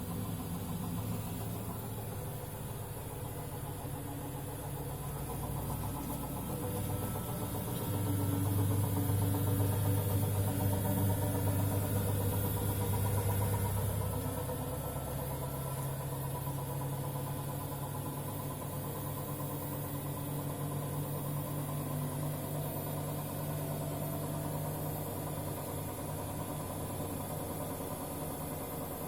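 Samsung WW70K62E69S front-loading washing machine spinning, with a steady drum hum and a knocking noise. The hum swells louder from about 8 to 14 seconds in, then settles. The machine is new, level and has its transport bolts removed; the Samsung service centre put the knock down to permissible bearing play.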